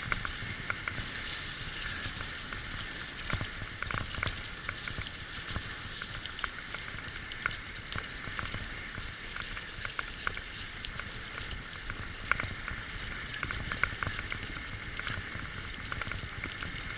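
Dog-drawn racing rig running along a trail behind a six-dog team: a steady crackling rumble from the wheels, with scattered small clicks and rattles.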